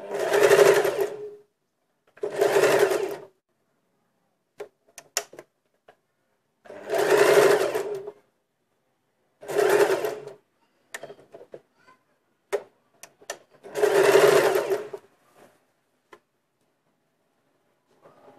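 Domestic electric sewing machine stitching a sleeve seam in short runs: five bursts of about a second each, stopping between them while the fabric is repositioned around the armhole curve, with small clicks and fabric handling in the pauses.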